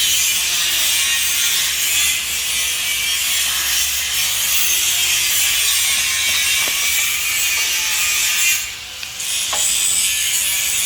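Mailtank 4-inch marble cutter (electric tile saw) running at full speed with a loud, steady high hiss, dipping briefly about nine seconds in.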